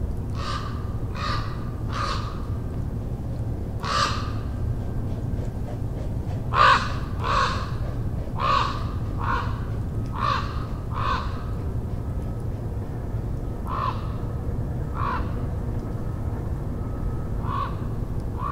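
A large black crow-family bird flying overhead gives short, harsh caws, about fifteen in a loose series, some in quick pairs, with gaps of a few seconds.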